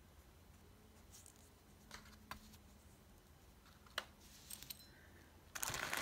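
Faint small clicks and taps of metal cuff links being handled and set down into their lined presentation box, a few scattered ticks, then louder handling clatter and rustling just before the end.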